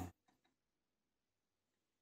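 Near silence: the steady running hum of a Record Power Coronet Herald wood lathe cuts off abruptly at the very start, followed by two faint ticks.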